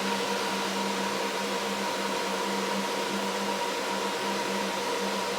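Graphics-card cooling fans of a GPU mining rig running steadily: an even whirring rush with a low hum and a couple of higher held tones. Among them is a GTX 1080 fan freshly greased with marine grease and pushed back onto its shaft after it had gone wobbly.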